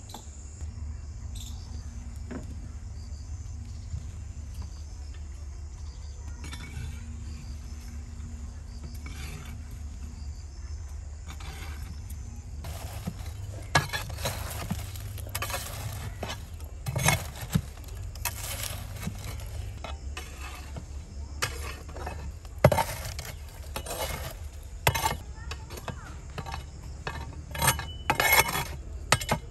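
Insects chirring faintly for the first part, then a metal rod raking hot charcoal across the floor of a clay oven, with repeated scrapes and sharp clinks of coals from about halfway on.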